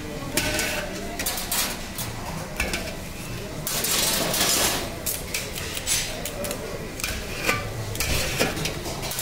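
Metal skewers and a blade scraping and clinking against an aluminium pot as cooked meat chunks are pushed off the skewers into it: an irregular run of metal scrapes and clanks.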